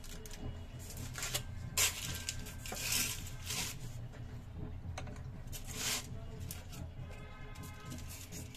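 Aluminium foil crinkling and rustling as raw dumplings are pressed down onto a foil-lined plate, in irregular handling rustles with the loudest about two and three seconds in and again near six seconds. A steady low hum runs underneath.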